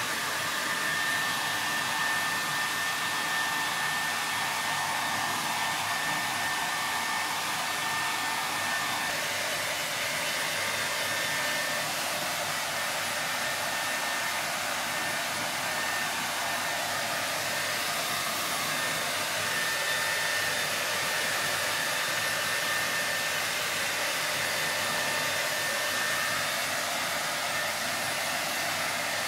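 Hair dryer blowing steadily on a wet Shetland sheepdog's coat after its bath, a constant rushing noise with a faint high whine.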